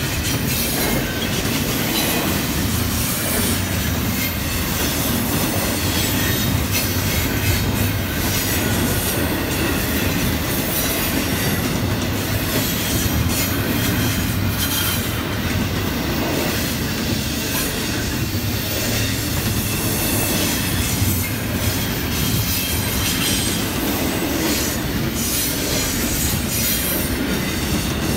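A train passing close by, its cars rolling past with a steady, unbroken noise of wheels on rails.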